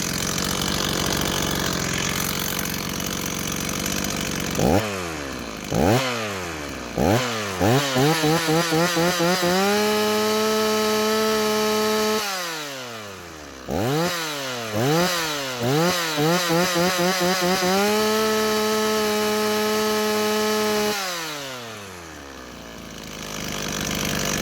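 Freshly rebuilt Stihl two-stroke chainsaw on its test run: it idles, is blipped up several times in quick succession, is held at full throttle for about two seconds, drops back, is blipped again and held at full throttle for about five seconds, then settles back to idle. It revs cleanly, a saw that is running very nice.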